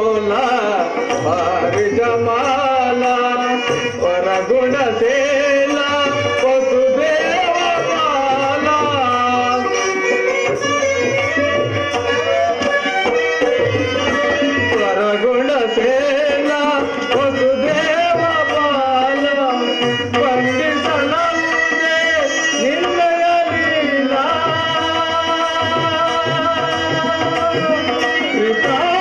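A song from an Indian stage drama: a man singing an ornamented melody, accompanied by tabla.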